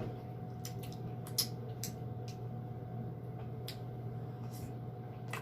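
Eating sounds: scattered short wet clicks and smacks of chewing, about seven in all, over a steady low hum.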